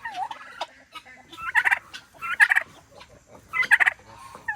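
Turkey calling in three short, rapid rattling bursts, a second or so apart.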